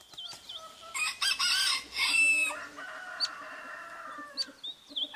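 A rooster crowing once, the call ending in a long drawn-out note, with a few short high chirps around it.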